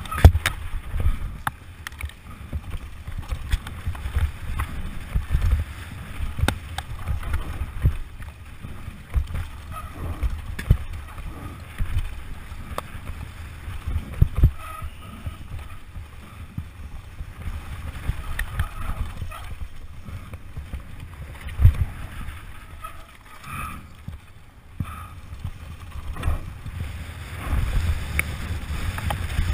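Mountain bike ridden fast down a dirt trail, heard from a helmet camera: a steady low rumble of wind on the microphone and tyres on dirt, broken by frequent knocks and rattles as the bike hits bumps, the sharpest just after the start and about two-thirds of the way in.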